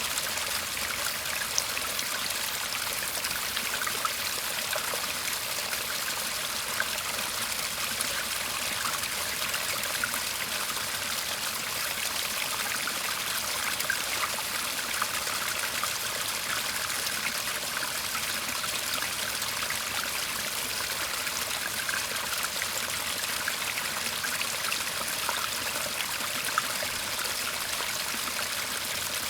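Shallow garden stream murmuring steadily, a continuous babble of trickling water with small splashes scattered through it.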